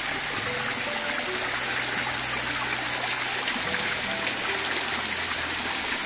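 Small mountain stream trickling and splashing over mossy rocks in a steady rush of water.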